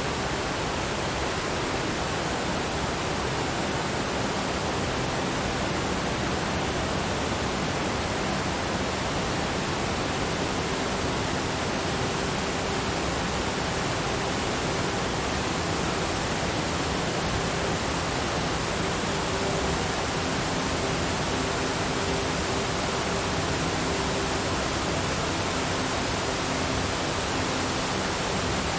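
Waterfall: falling water making a steady, even rush that never breaks.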